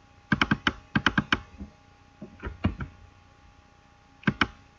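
Computer keyboard keys and mouse buttons clicking in quick runs of about four, a few single clicks, then a pair of clicks near the end: text being copied and pasted between windows.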